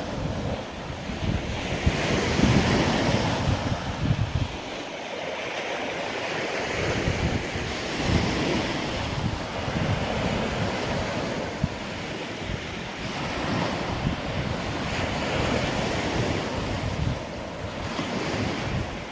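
Gulf surf washing onto the beach, swelling and easing every few seconds, with gusts of wind buffeting the microphone.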